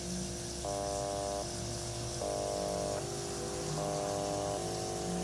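Electronic buzzing tones from a laptop: a series of steady, reedy chords, each held just under a second, stepping from one pitch pattern to the next in a regular sequence over a shifting low note.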